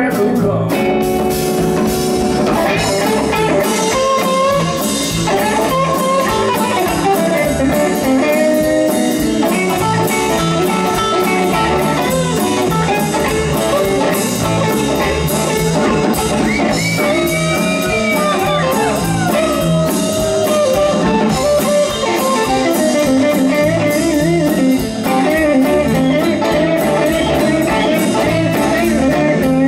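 Live blues band playing an instrumental passage: electric guitar lead with bent notes, over bass guitar and drum kit.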